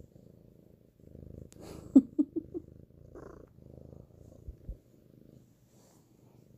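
Domestic cat purring close to the microphone, swelling and fading with each breath, with a few quick sharp sounds about two seconds in.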